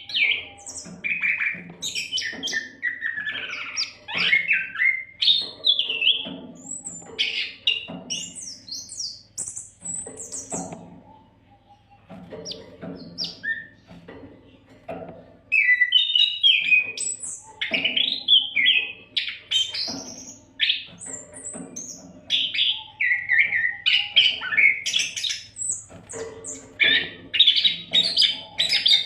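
Oriental magpie-robin (kacer) singing continuously in full voice: a fast, varied run of whistles, chirps and harsh squawking notes, with a brief pause about halfway through.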